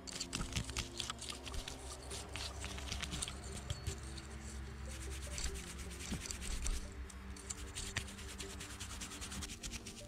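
Close scratchy rubbing and crackling from an object being handled, with dense small clicks throughout, over quiet steady background music.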